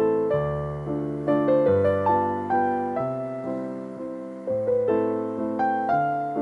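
Background piano music: a steady flow of single notes and chords, each struck and then fading.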